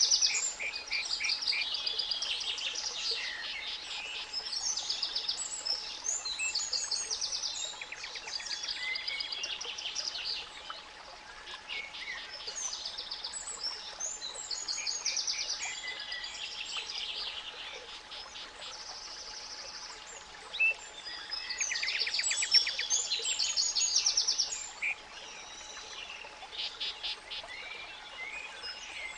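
Several songbirds singing and trilling over one another in a spring chorus, with a steady 852 Hz pure tone humming faintly underneath and a soft even noise bed.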